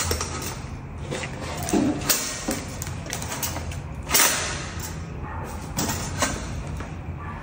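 Handling noises from a two-slice toaster being turned over in the hands: a few soft knocks and rubbing sounds on its plastic and steel body, the loudest about four seconds in.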